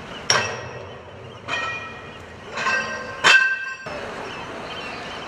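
Four sharp metallic strikes, each ringing briefly with bell-like tones; the last is the loudest.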